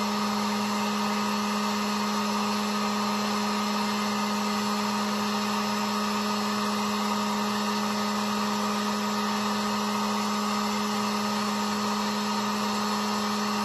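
Harbor Freight 1500-watt heat gun running steadily, its fan blowing hot air with a constant whir and an even hum.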